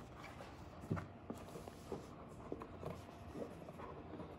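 Faint handling of a cardboard trading-card box: the lid comes off and fingers rummage inside, with soft rustling and a few light taps and scrapes.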